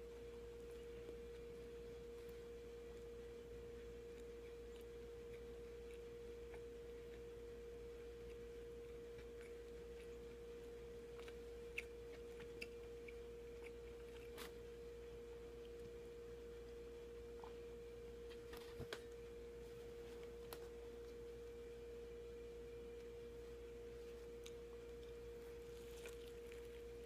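A faint steady hum at one pitch, with a few faint clicks from chewing and handling bread.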